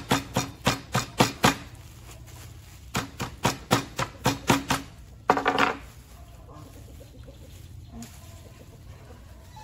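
Kitchen knife chopping red onion on a plastic cutting board: quick, even strokes about four a second in two runs with a short pause between, then a brief louder rasp about five seconds in, after which only faint handling sounds remain.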